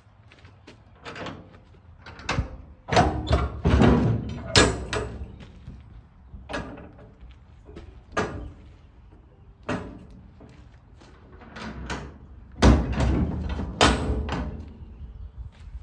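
Steel shipping container doors being unlatched and swung open: a series of metal clanks from the locking bars and handles, and scraping as the heavy doors move. It is loudest about three to five seconds in and again near the end.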